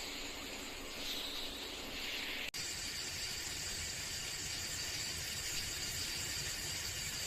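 Forest ambience: insects calling in repeated pulses, then after an abrupt cut about two and a half seconds in, a steady high insect hum over a low rumble.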